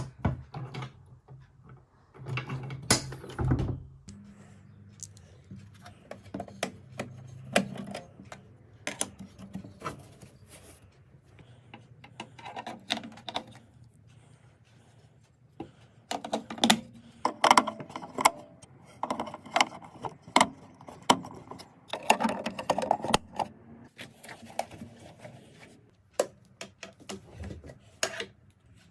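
Handling noise as a pistol safe and its parts are unpacked: scattered clicks, light rattles and knocks, busiest in the second half, over a faint steady low hum.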